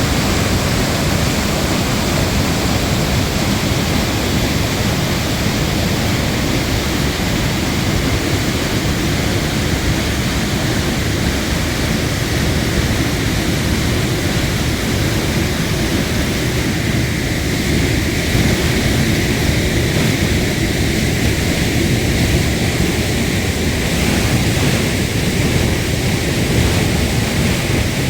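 Waterfall crashing, a loud steady rush of falling water.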